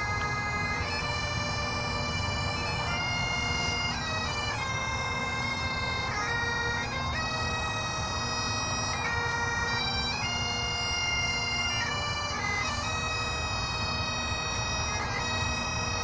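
Bagpipes playing a slow tune over their steady drone.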